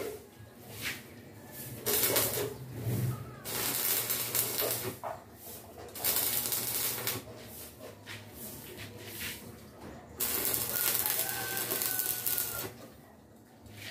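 Stick arc welding: the arc crackles and sizzles in bursts of a few seconds, stopping and starting between welds. A rooster crows in the background near the end.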